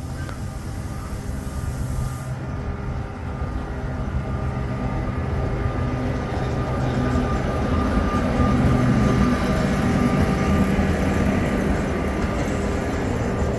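Sóller tram running along its line: a steady mechanical hum with several held tones, growing louder to a peak about two-thirds of the way through, then easing a little.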